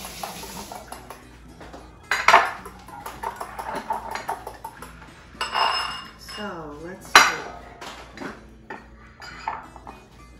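A fork clinks against a small glass bowl as an egg is beaten, in runs of quick light taps. A few louder clatters of kitchen utensils and dishes come about two, five and a half, and seven seconds in.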